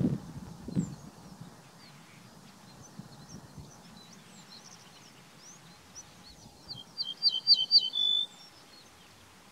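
Ortolan bunting singing one song phrase near the end: a quick run of about five short, ringing high notes, then a longer, lower held note. A few low thuds come in the first second.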